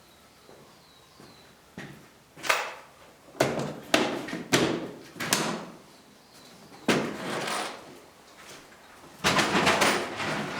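A series of irregular rough scraping strokes on wood, short ones at first and two longer drawn-out strokes later.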